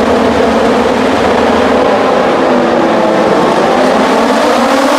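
A pack of MotoGP racing motorcycles on the front straight, many engines at high revs together, making a loud, steady wall of engine noise with several pitches on top of one another.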